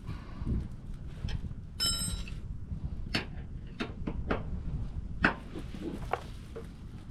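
Irregular clicks and knocks of a wrench working on a propane hose fitting being tightened, with a brief metallic ring about two seconds in, over a steady low rumble.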